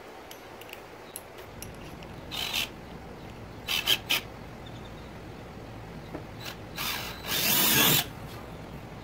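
Cordless drill run in a few short bursts, then drilling straight through the thin plastic wall of a kayak hull, the loudest burst lasting under a second near the end.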